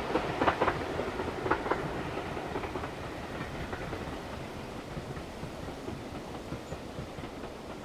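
Train of passenger coaches passing, its wheels clicking over the rail joints in a quick run of clacks during the first two seconds. A steady rumble follows and fades as the train draws away.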